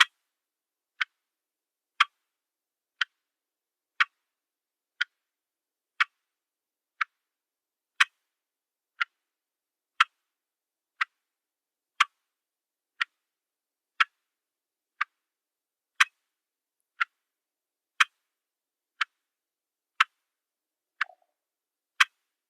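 Clock ticking once a second, in an alternating loud-soft tick-tock, with dead silence between the strokes.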